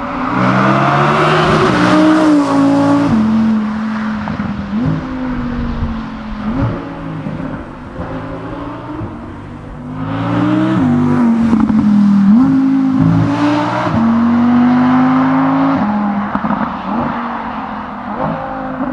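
Audi R8 V10 engine and exhaust under hard acceleration, twice. Each time the pitch climbs through a gear and drops back at the upshift, several shifts in a row, with a quieter spell between the two runs.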